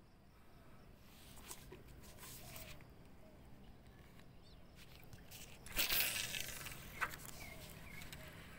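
Faint outdoor riverbank ambience with a few soft bird chirps. About six seconds in comes a short, loud rustling swish, then a sharp click about a second later.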